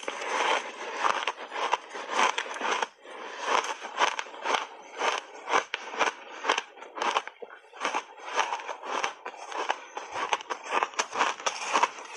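Crunchy refrozen blended shaved ice being chewed in big mouthfuls: close, irregular crackling crunches, several a second.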